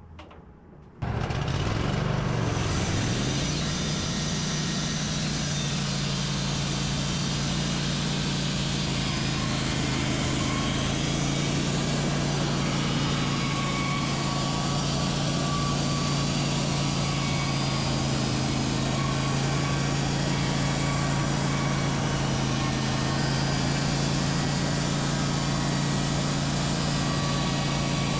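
Wood-Mizer LT15 Wide band sawmill's engine comes on suddenly about a second in, its pitch dips and settles, then it runs steadily at one speed.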